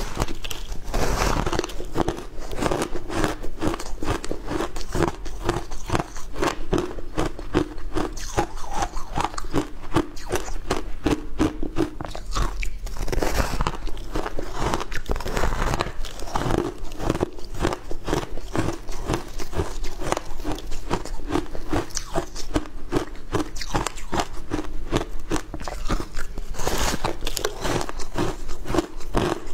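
Biting and chewing a block of frozen shaved ice topped with passion fruit pulp: a dense, steady run of crisp crunches.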